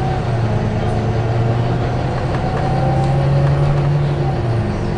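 Volvo B9TL bus's six-cylinder diesel engine pulling under load, heard from inside the bus; its steady hum climbs slowly in pitch, then drops about four and a half seconds in as the gearbox changes up.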